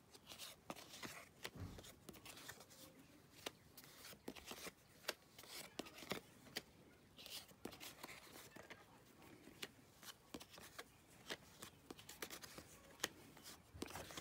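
Faint handling of 1975 Topps cardboard baseball cards: light, irregular clicks and rustles as cards are picked up, slid apart and laid down one by one.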